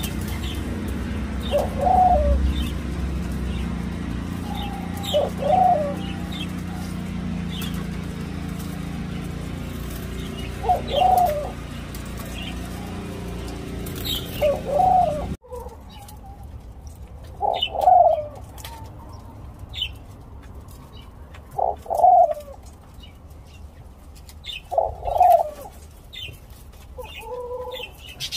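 Senegal dove × ringneck dove hybrid giving its nest coo: a short low coo repeated about every three to four seconds, about eight times.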